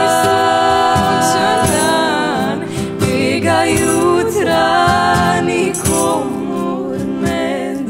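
A song being sung, the voice holding long notes over instrumental accompaniment with a steady beat.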